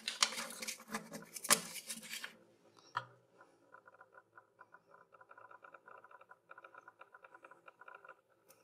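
Fingers scraping and picking coins off the wooden floor of a drawer: a quick run of clicks and scrapes for about two seconds, then one sharp click. After that comes a faint, fast, even pattering of ticks.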